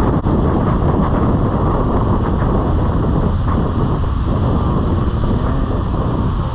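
Loud, steady wind noise buffeting the microphone on a moving motorcycle, with road and vehicle noise mixed in.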